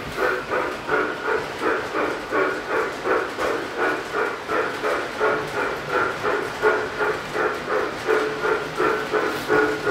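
Model Southern Pacific 2-8-0 steam locomotive chuffing steadily from its onboard sound system, about three chuffs a second, as it runs along the track.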